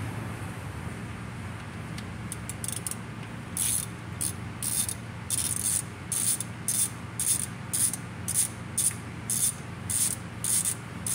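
Hand ratchet clicking in short repeated strokes, about two a second, as it turns a bolt on the exposed automatic transmission valve body. The clicking starts about two seconds in over a steady low hum.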